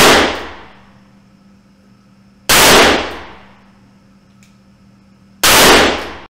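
Three single shots from a Club 30 RLrange stainless-steel match revolver chambered in .357 Magnum, fired slowly about three seconds apart. Each shot echoes and dies away over about a second in the indoor range.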